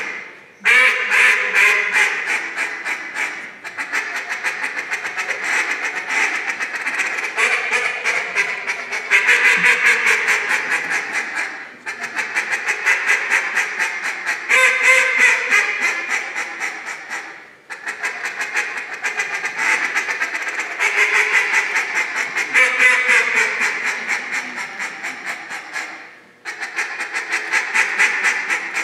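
Hand-held duck call blown in a competition live-duck routine imitating a mallard hen: long runs of fast quacks, in about five sequences with brief breaks between them.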